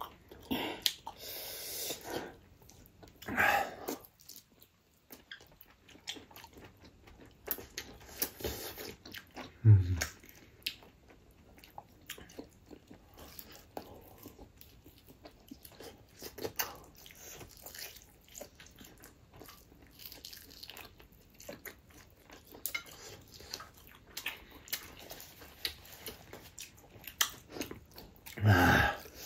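Close-miked eating sounds of chewing and biting: many short irregular clicks and mouth noises, with louder bursts a few seconds in, about ten seconds in, and near the end.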